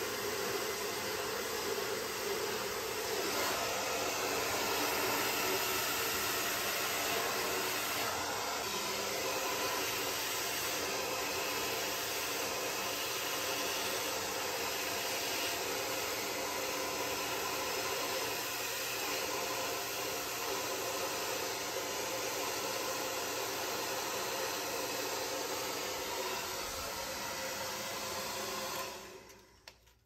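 Somoya hand-held hair dryer running steadily, blowing air on hair being worked with a round brush. It is switched off near the end and the sound cuts off.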